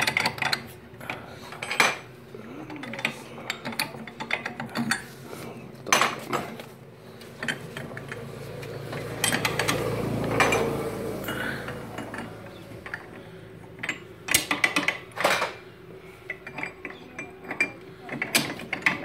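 Metal gears and parts of a Bajaj Chetak scooter's gearbox clicking and clinking as they are fitted by hand onto the shafts. The clicks are sharp and irregular, with a denser stretch of clatter about halfway through.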